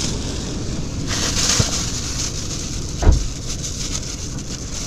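Plastic bags holding fish fillets rustling and crinkling as they are handled, over a steady low background noise, with one short low thump about three seconds in.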